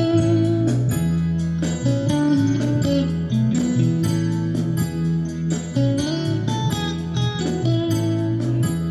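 Gospel band playing an instrumental passage: plucked guitar over held bass notes, with a steady beat.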